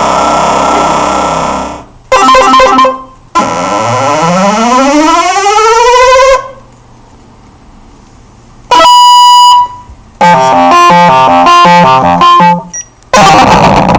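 Random 8-bit synthesized samples from a MaxMSP patch, playing one after another: a buzzy held tone, a short burst, then a tone sweeping upward in pitch for about three seconds. After a pause comes a brief beep, a rapid stepping run of notes, and a short noisy burst near the end.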